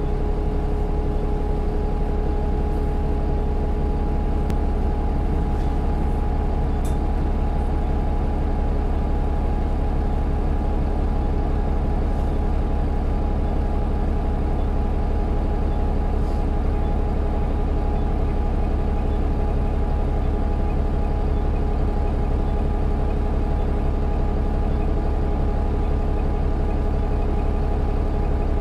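Road traffic dominated by a large vehicle's engine running steadily at close range, a deep unchanging rumble with a steady hum above it.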